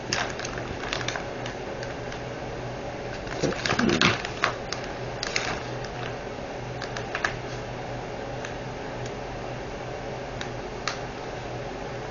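Scattered small plastic clicks and taps from diamond painting drill bags and storage containers being handled and sorted. A louder cluster of rattling clicks comes about four seconds in.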